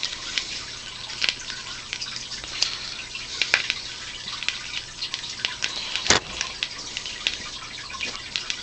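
Burning fire-starter patty crackling and sputtering: irregular small pops over a steady hiss, with one sharper pop about six seconds in.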